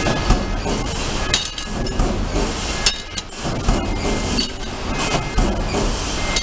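Stamping press line running with a steady machine din, broken by irregular metallic clinks and knocks as small stamped metal dishes drop off the outfeed chute onto the conveyor belt.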